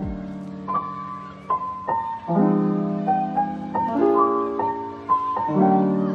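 Background piano music: held chords with melody notes struck over them.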